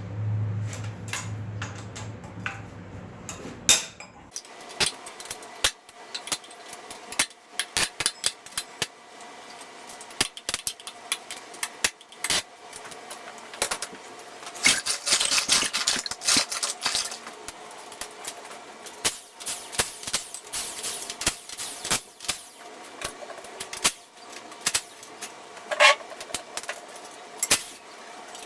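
Hand tools working the cylinder head fasteners on a Honda K20 engine: repeated metallic clicks and clinks of a wrench and socket on the head studs, with a denser run of rapid clicking about halfway through. A low steady hum stops about four seconds in.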